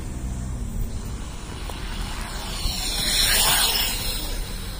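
Steady low rumble of vehicles, with a louder rushing noise that swells and fades about three seconds in, like a vehicle passing close by.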